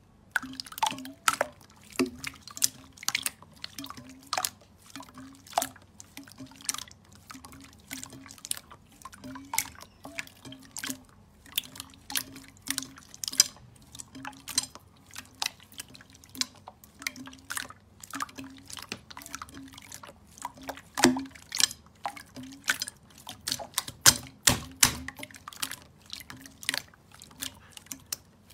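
Hands squeezing and kneading wet clear slime, giving a continuous irregular run of wet squelches and sharp popping clicks.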